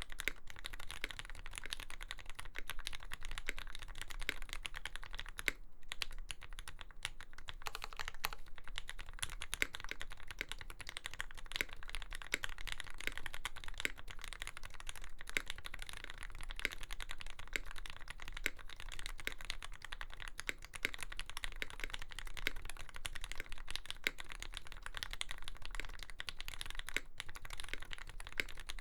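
Continuous fast typing on a custom mechanical keyboard, a Lyn Dolphin V3 with an aluminium plate, lubed Gateron Fei switches with black Cherry tops and GMK Dolch keycaps, a dense stream of key clacks with brief pauses.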